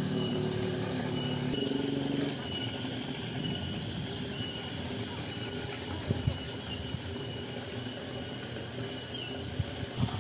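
Cicadas droning steadily, a high-pitched insect buzz in the afternoon countryside. A lower hum underneath stops about two seconds in.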